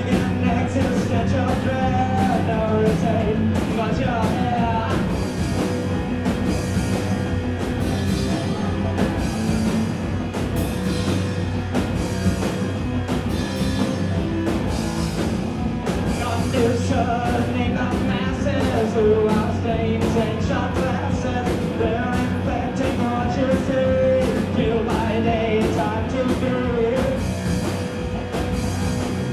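Live rock band playing an instrumental stretch: distorted electric guitar, drum kit keeping a steady beat with cymbal hits, and keyboard synth, with a long held note running through much of it. Heard from the back of the room, with the room's echo.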